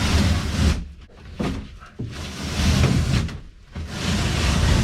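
Old boat carpet being ripped away from the side panels in about four long tearing pulls, each ending with a short pause.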